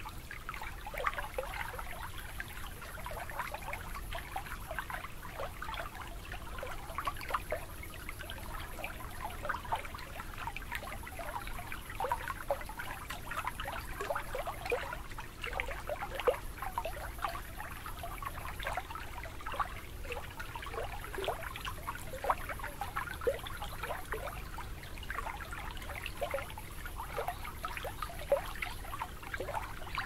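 Shallow water lapping and trickling at the water's edge: a continuous patter of small splashes and gurgles.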